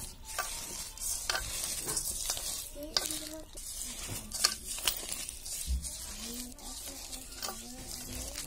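Fried dried red chillies being crushed and rubbed by hand in oil, a steady crackling crunch with a few sharper cracks.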